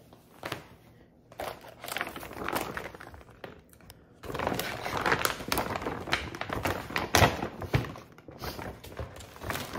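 Paper gift bag being opened and handled: rustling and crinkling, with small knocks. It starts about a second and a half in and gets louder after a short lull halfway through, with one sharp knock near the end.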